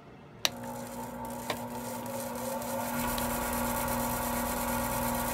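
Harbor Freight 10x18 mini lathe switched on with a click about half a second in, its motor then running with a steady hum and whine that grows louder as it spins up. Through the router speed controller set above medium, it goes all the way up to top speed instead of holding the intended lower speed.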